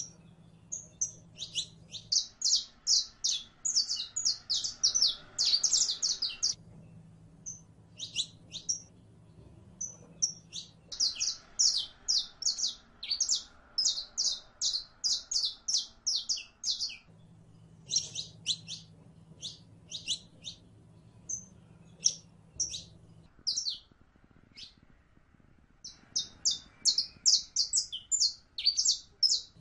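Saffron finch (Sicalis flaveola) singing: fast strings of high, sharp chirping notes in phrases several seconds long, with short pauses between phrases.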